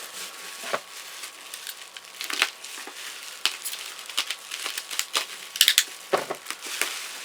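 Packaging being handled while unboxing Funko Pops: irregular crinkling and crackling with sharp clicks, and a loud cluster of snaps about five and a half seconds in.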